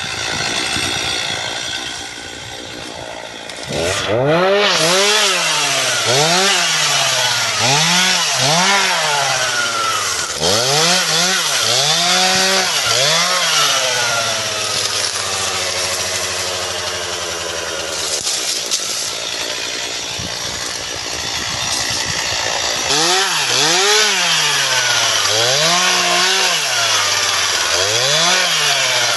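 Chainsaw engine idling at first, then from about four seconds in revved hard again and again, its pitch rising and falling about once a second. There is a steadier, held stretch in the middle, and then more revving near the end.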